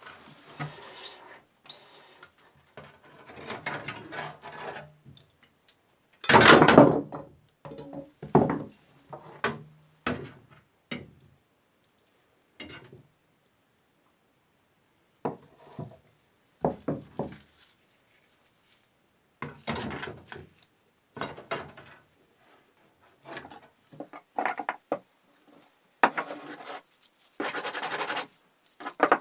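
Workshop hand-work noises from restoring machine parts: short scrapes, rubs and knocks in separate bursts with quiet gaps between them. The longest and loudest scrape comes about six seconds in.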